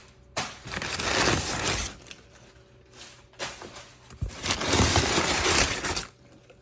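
Packing material in a shipping box rustling and crinkling in two longer bouts as items are dug out by hand.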